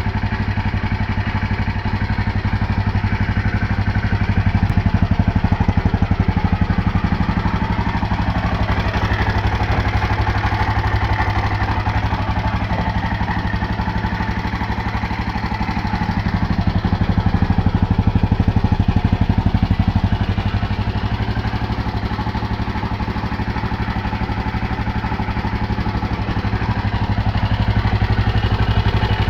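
KTM LC4 single-cylinder four-stroke motorcycle engine running at a steady speed, swelling slightly in loudness twice.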